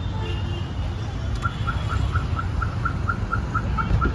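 Rapid electronic beeping at one steady pitch, about four beeps a second, starting about a second and a half in, over the steady low rumble of a vehicle or road traffic.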